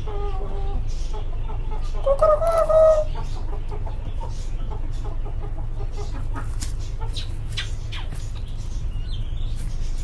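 Chickens clucking, with one louder, slightly rising call lasting about a second, about two seconds in, over a steady low rumble; scattered short clicks and scratches follow.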